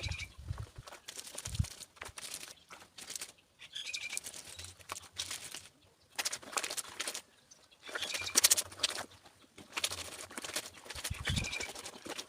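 Clothes being washed by hand: wet fabric scrubbed and sloshed in repeated strokes, one every second or two. A few short chirps, like a bird calling, come through faintly between them.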